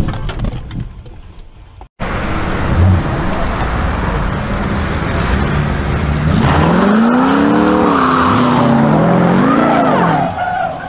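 Hot-rodded Ford Popular engine revved hard several times as the car pulls away, its pitch climbing and dropping in repeated surges over road noise. The revving dies down near the end.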